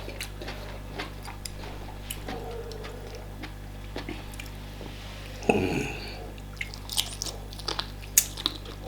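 Close-up eating sounds of starch fufu and banga soup with meat: wet chewing and mouth clicks, scattered through, with one louder, longer smack about five and a half seconds in.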